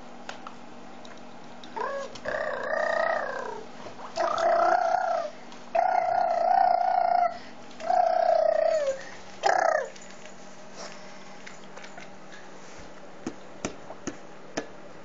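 A baby making a string of about six long, high-pitched vocal squeals, some sliding in pitch, which stop about ten seconds in.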